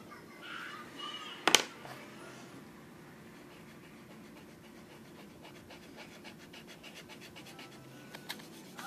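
Drawing on paper: a single sharp click about a second and a half in, then a run of quick scratchy strokes, several a second, in the second half.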